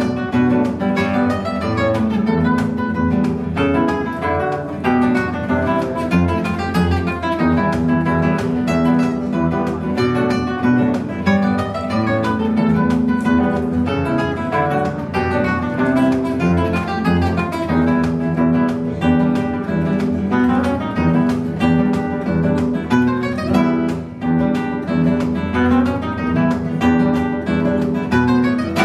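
Two acoustic classical guitars playing a duet: quick plucked runs over strummed chords, without a break.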